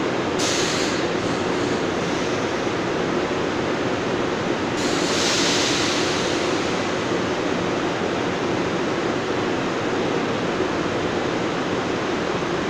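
NJ Transit passenger train standing at the platform with its equipment running in a steady hum and rush of noise. Two bursts of hiss cut in, a short one just after the start and a longer one about five seconds in.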